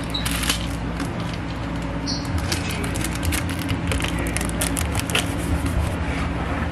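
Hands handling a white cardboard cake box and its plastic wrapping: scattered light taps, scrapes and rustles over a steady low hum.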